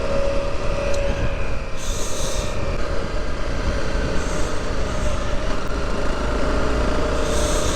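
Motorcycle engine running at a steady pitch while riding, under heavy wind rumble on the microphone, with a few short bursts of hiss.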